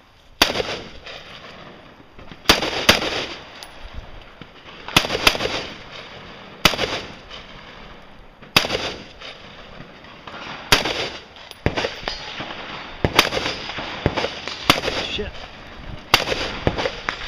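AR-15 rifle shots fired one at a time during a timed practical rifle stage: about fifteen sharp shots at uneven spacing, some in quick pairs less than half a second apart, each with a short echo.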